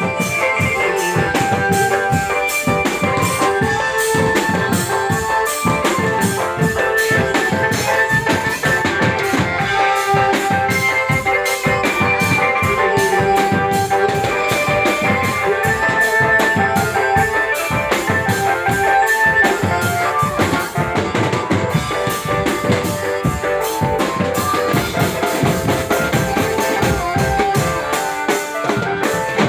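Dramben drum band playing: a dense, driving beat of bass drums and snares under a sustained keyboard melody.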